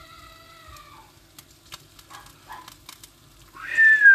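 A cat meowing: a drawn-out call at the start, then a much louder call near the end that slides down in pitch.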